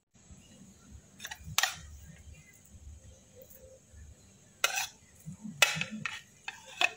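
A metal spoon scraping chicken paste out of a blender jar, with about six short, sharp clicks and knocks of the spoon and jar against each other, the loudest a little after one and a half seconds and near five seconds.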